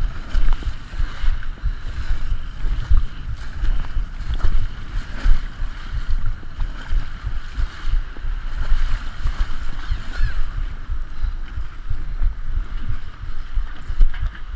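Heavy wind buffeting on the microphone over a steady rush of water, from an International Moth sailing dinghy under way.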